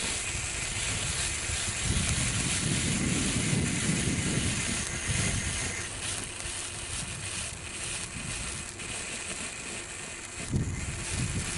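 Homemade fan of silver indoor fountains (ice fountains) hissing steadily as they spray sparks and burn down one by one, with wind rumbling on the microphone.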